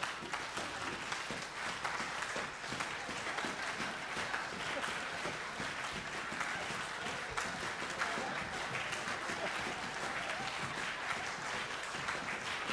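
Audience applauding: many hands clapping at once, steady and unbroken.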